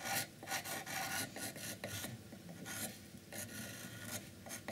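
Pencil scratching across the painted surface of a wooden box in short, irregular strokes while sketching outlines.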